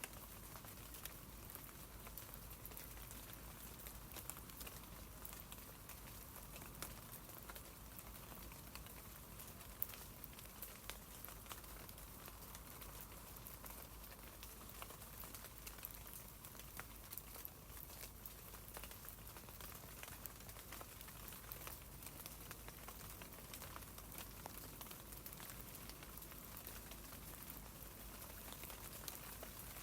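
Rain falling on tree leaves: a steady, quiet patter of many small drops ticking on the foliage.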